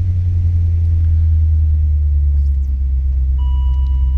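BMW 740's 4.4-litre V8 idling steadily from inside the cabin, just after being started with a supercapacitor jump starter off a flat battery. A steady electronic beep comes in near the end.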